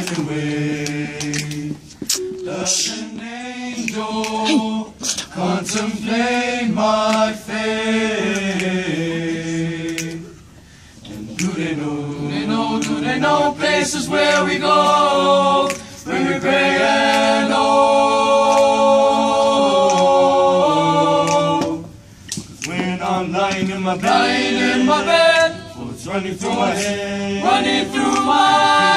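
Male vocal group singing a cappella in several-part harmony, holding chords, with brief pauses about ten seconds in and again about twenty-two seconds in.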